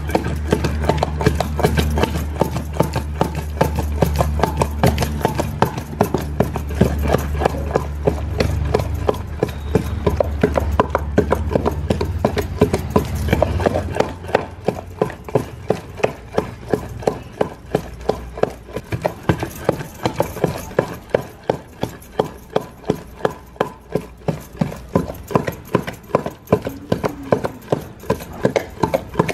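Steady rhythmic knocking, about two to three strikes a second. A low hum runs under it until about fourteen seconds in, then stops.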